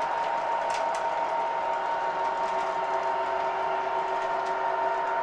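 Model train cars rolling along three-rail track: a steady mechanical whir and whine, with a couple of sharp clicks about a second in.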